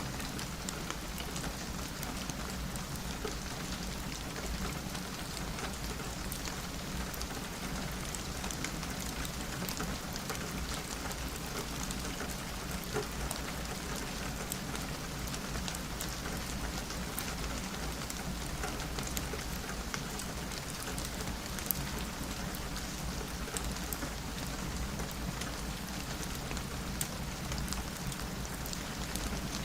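Steady rain falling on a window, an even hiss with scattered sharp drop ticks and a couple of slightly louder clicks.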